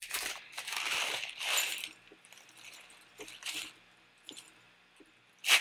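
Foil bag of hop pellets crinkling as it is torn open and handled, then quieter rustling and a few light ticks as pellets drop into a glass, with one short sharp rustle near the end.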